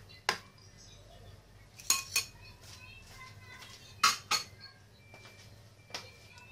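A fork clinking against a serving plate while eggplant dip is spread and shaped on it: several light clinks, mostly in quick pairs about two seconds apart.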